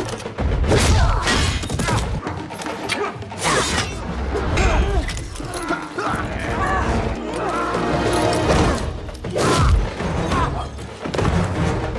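Fight-scene soundtrack: a music score under a string of blows, thuds and sharp impact hits, with some vocal sounds.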